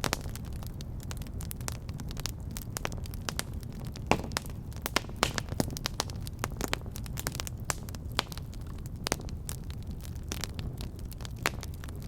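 Wood fire burning in a fireplace: a steady low rumble with irregular sharp crackles and pops, a few louder snaps among them.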